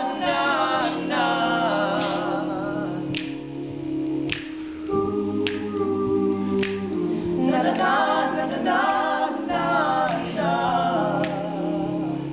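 All-male a cappella group singing held, wordless chords over a low bass line, with a lead voice wavering above them. A sharp click marks the beat about once a second.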